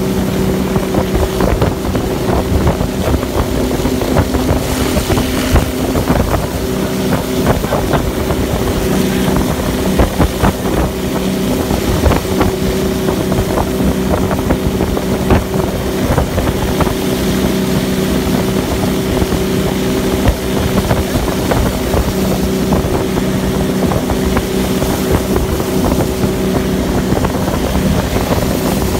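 Tow boat's engine running at a steady pitch while pulling a barefoot water skier, over the rush of spray and wind on the microphone.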